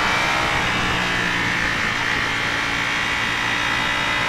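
Ducati Panigale V4S's V4 engine running at a steady cruise, holding an even, buzzy note with no revving, under a rush of wind and road noise.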